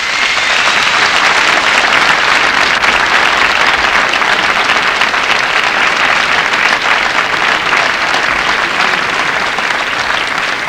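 Large studio audience applauding steadily, the clapping easing off a little near the end.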